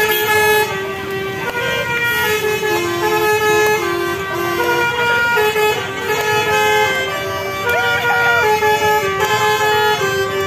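Basuri telolet musical air horn on a bus playing a tune: loud held notes that step up and down one after another, without a break.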